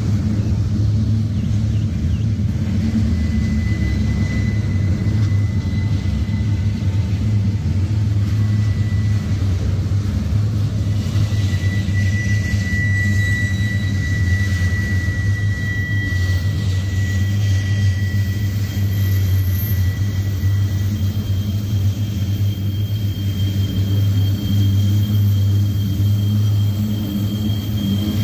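CSX intermodal double-stack train's well cars rolling past: a steady low rumble of steel wheels on rail. A thin high squeal comes and goes over it.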